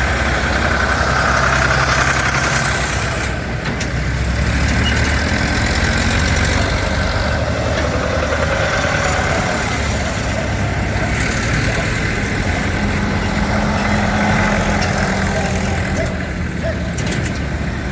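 Tractor engines running steadily, with the engine pitch shifting now and then.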